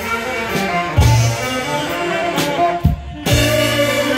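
Saxophone ensemble playing a tune in unison over a deep bass line. The music drops briefly just under three seconds in, then comes back in.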